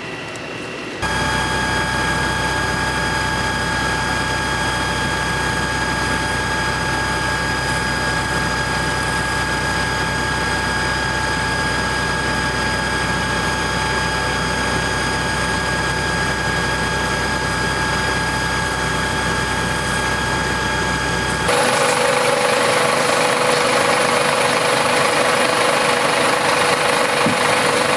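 Fire engine's engine and pump running steadily, a constant drone with a steady whine. It starts abruptly about a second in, and near the end it switches abruptly to a louder, hissier running sound with a lower whine.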